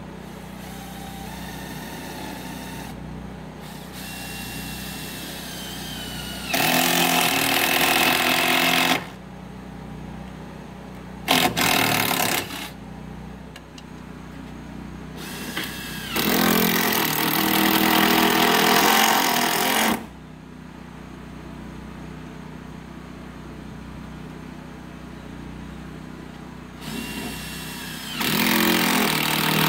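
Cordless power driver running in four runs of a few seconds each, driving screws through the steel bottom track into the plywood subfloor, with a steady low hum underneath.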